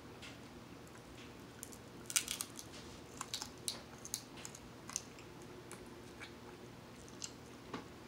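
Eating king crab close to the microphone: crisp cracks and clicks of crab shell being broken and picked, with chewing. The cracks start about two seconds in, come thickest over the next two seconds, then turn sparse.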